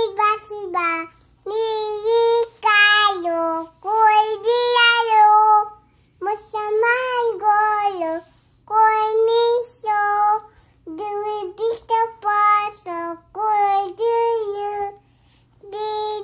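A small girl singing a Nepali nursery rhyme unaccompanied, in short sung phrases with brief breaths between them.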